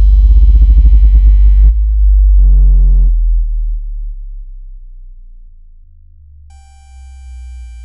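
Synthesized water-ejection tone track, made to shake water out of earbud speakers: very deep pulsing bass with a buzzy upper layer that cuts off after under two seconds. A short lower tone follows, the deep bass then fades, and near the end a steady high-pitched chord of pure tones sounds over a low hum.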